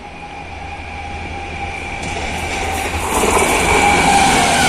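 A WAP-7 electric locomotive and its express train approach at about 130 km/h and rush past close by. The train noise grows steadily louder and jumps sharply about three seconds in as the locomotive reaches the spot, and a steady whine drops in pitch near the end as it goes by.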